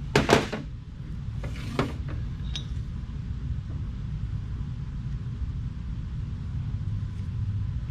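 A steady low rumble, with a sharp knock just after the start and another about two seconds in.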